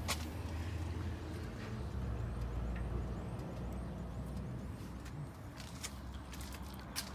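Scania G 82M fire truck's diesel engine idling: a steady low rumble, with a few sharp clicks, the loudest just after the start and near the end.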